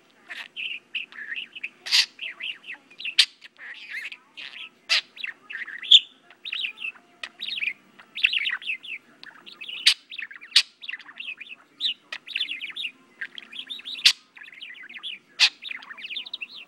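English budgerigar warbling: a continuous run of rapid chirps and chatter with sharp clicks mixed in, which stops abruptly at the end.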